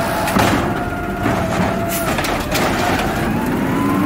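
Automated side-loader garbage truck setting an emptied cart back down with a few clanks over a steady hydraulic whine, then a whine rising steadily in pitch from about two and a half seconds in as the truck pulls away.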